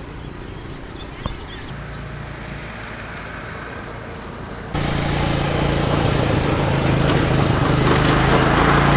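A motor vehicle engine running steadily with a low hum. It gets abruptly louder about five seconds in.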